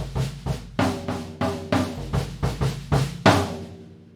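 Drum kit playing a Latin-style groove, the toms standing in for conga and tumba over bass drum, in quick even strokes. It ends on one loud accented hit a little past three seconds in that rings away.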